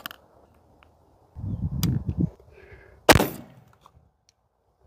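A CVA Optima V2 .50-caliber muzzleloader pistol fires one loud shot about three seconds in, with a short echoing tail. Before it come a click and a brief low rumble.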